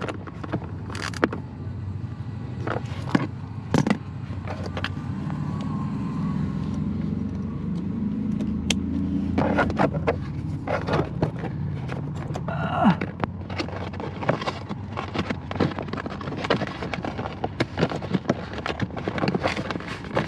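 2003 Dodge Ram's newly replaced heater blower motor running with a steady low hum that swells over the first dozen seconds. Irregular clicks and knocks run throughout.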